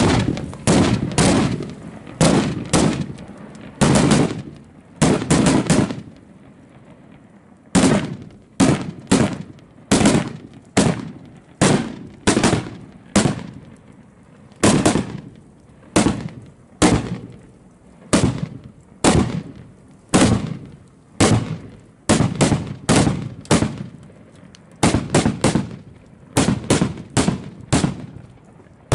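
A wheelbarrow-load of cohetes (Mexican firework rockets) burning in a heap and going off in a long, irregular string of loud bangs, one or two a second, with a short pause about six seconds in.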